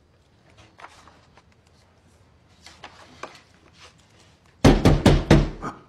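Faint scattered clicks and knocks, then, near the end, a quick run of about four loud thumps.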